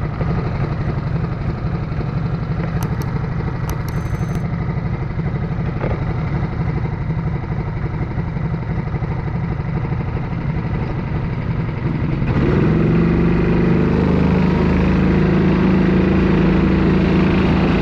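Sodi kart's engine heard onboard, running low with an uneven pulsing. About twelve seconds in it opens up and runs clearly louder and steadier as the kart pulls away.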